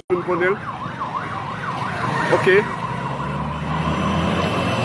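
A siren yelping in quick rises and falls, several a second, for about the first second and a half, over steady outdoor background noise with a low rumble; a brief voice cuts in about two and a half seconds in.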